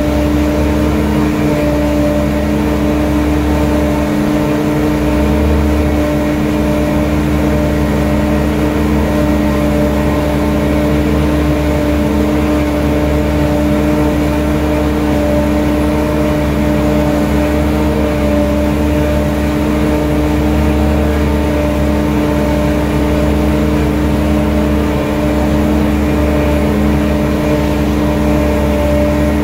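A steady machine hum holding one constant pitch with its overtones, over a low rumble, with no change in speed or load.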